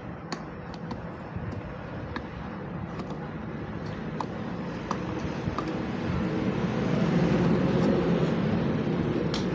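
Low rumble of a passing road vehicle that swells over the second half, peaking near the end, with a few light clicks of small parts and tools being handled.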